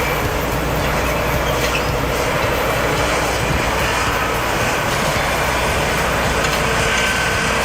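Heavy truck's diesel engine running steadily under load, a continuous low rumble.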